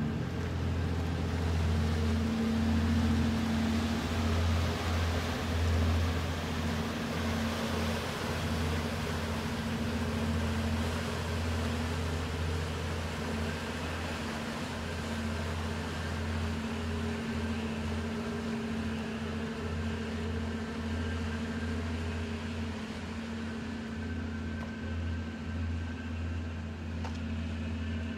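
The car ferry William Frankland's engines running with a steady low hum as the ferry pulls away from the wharf, growing slowly fainter.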